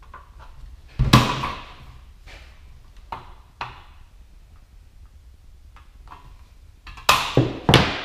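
Sheet-metal clanks and clicks from hand notchers working the metal edge of a flexible duct connector. There is one loud ringing clank about a second in, lighter clicks after it, and three loud clanks in quick succession near the end as the notchers are set down and the metal strip is handled.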